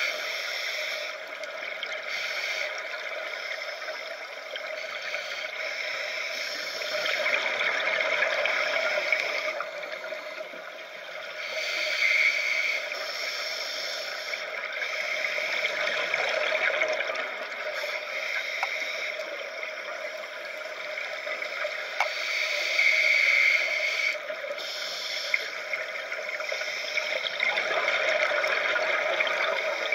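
Underwater scuba sound: regulator exhaust bubbles gurgling in repeated bursts every several seconds over a steady underwater hiss.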